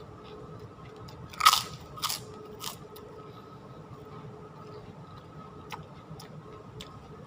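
Close-up eating sounds from a mouthful of ketoprak: three loud crunches about half a second apart, starting a little over a second in, then fainter chewing clicks.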